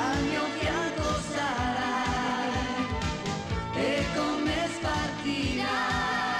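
Italian pop theme song playing: a steady drum beat under long, wavering melody notes.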